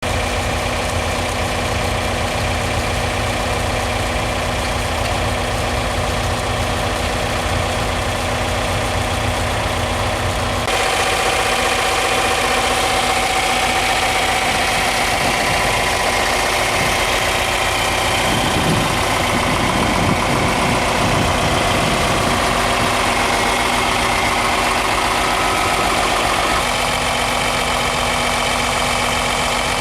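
John Deere 4020 tractor's six-cylinder engine running steadily, driving a sawmill by belt from its pulley. About ten seconds in the sound gets brighter and a little louder, and it drops back near the end.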